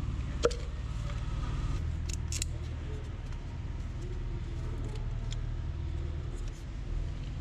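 A few sharp plastic clicks and taps from ignition coils and their connectors being unclipped and handled, over a steady low background hum.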